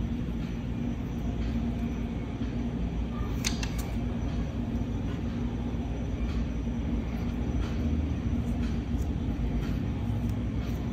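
A steady low rumble with a faint hum, and a few small clicks and taps of the smartwatch and its strap being handled, the sharpest about three and a half seconds in.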